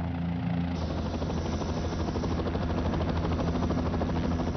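Kiowa scout helicopter in flight: a steady low engine and rotor drone, joined about a second in by a fast, even beating of the rotor blades that carries on throughout.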